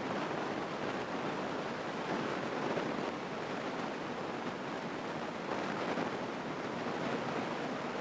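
Steady, even rushing noise of a light airplane in cruise flight, heard through the headset intercom.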